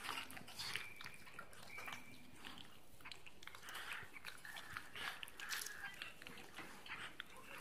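Dog licking a cat's fur: quiet, irregular wet lapping and smacking clicks of the tongue.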